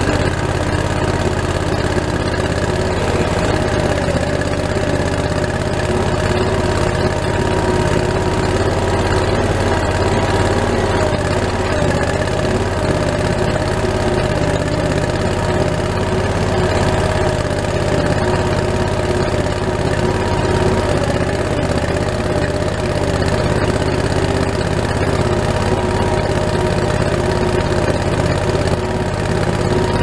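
Skid steer's engine running steadily, heard from the operator's seat inside the cab.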